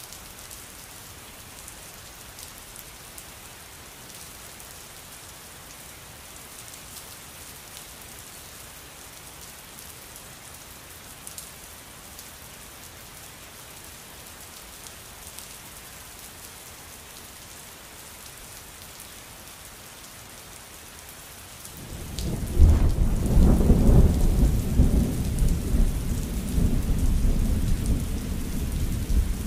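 Steady rainfall, then a little over 20 seconds in a loud, long rumble of thunder rolls in and keeps going.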